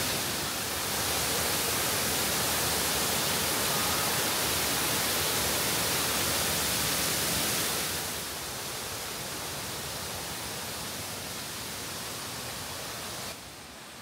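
Nabegataki waterfall's falling water rushing in a steady, even wash of noise. It drops in level about eight seconds in and again near the end.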